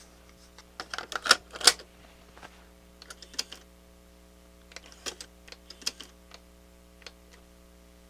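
Clusters of sharp clicks and clacks from a Nakamichi CR-1A cassette deck's transport controls and mechanism being operated while testing record mode, with pauses of a second or two between groups, over a faint steady hum.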